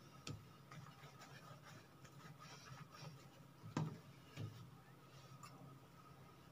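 Faint rubbing of hands rolling bread dough into a log on a floured stone counter, with a soft thump nearly four seconds in and another about half a second later, over a steady low hum.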